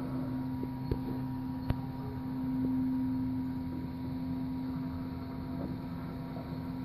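A steady low hum, a little louder a few seconds in, with two short sharp clicks about one and two seconds in.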